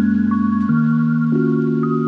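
Soft background music: a slow melody of sustained notes, each giving way to the next about every two-thirds of a second.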